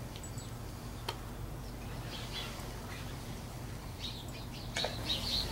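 Small birds chirping faintly, short high chirps here and there that come thicker near the end, over a steady low hum.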